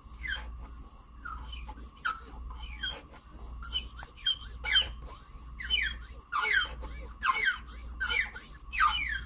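A hand file squealing as it is drawn across a plastic model-kit part, a weird sound. Each stroke gives a high squeak that slides down in pitch, about a dozen strokes at an uneven pace, louder in the second half.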